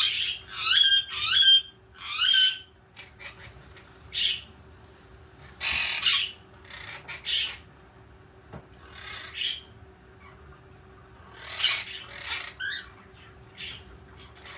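Pet parrots squawking and calling: a quick run of four loud, pitched calls in the first two and a half seconds, then scattered harsher squawks every second or two.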